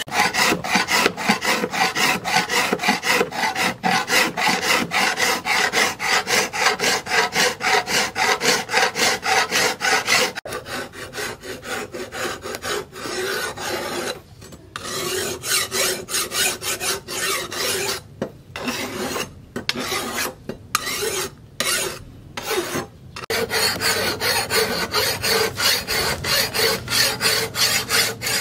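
Hand file rasping back and forth across the steel of a machete blade cut from a plough disc, in quick, even strokes. The strokes change character about ten seconds in, then stop briefly several times before resuming steadily.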